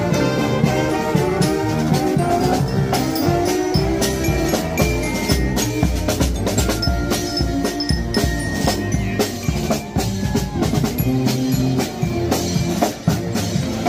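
Mummers string band playing live as it marches: saxophones carrying the tune over a sousaphone bass line and a steady drum beat.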